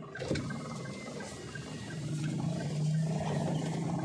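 A car's engine and road noise heard from inside the cabin while driving: a low, even drone that grows louder about halfway through. Over it the turn-signal indicator ticks about three times a second, with a single click just after the start.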